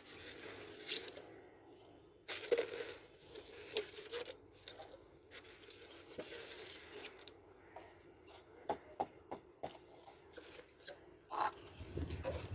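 Soil being scraped and patted down by hand in a plant pot: intermittent rustling and scraping, then a few light taps near the end.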